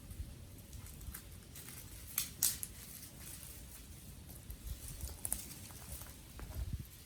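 Dry wooden sticks crackling and snapping in irregular sharp cracks, the loudest a pair about two and a half seconds in.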